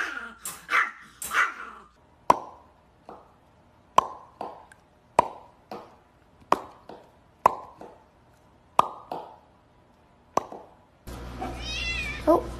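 A small dog barking several times in quick succession, then a series of single sharp pops, each with a short ring, coming about once every second and a half.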